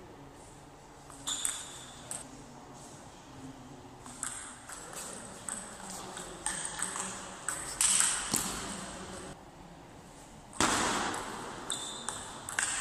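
Table tennis rally: the ball clicking sharply off the paddles and the table in a quick, irregular series of hits. A louder burst of noise, about a second long, comes near the end.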